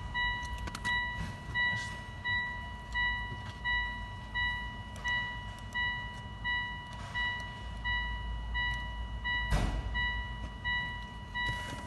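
An electronic beeper sounding a steady high beep about twice a second, over and over. Short bursts of workshop noise come through it, the loudest about two seconds before the end.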